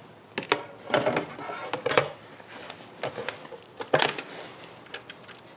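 A vinyl record being handled and set down onto a turntable platter: a string of irregular clicks and knocks with light rubbing between them.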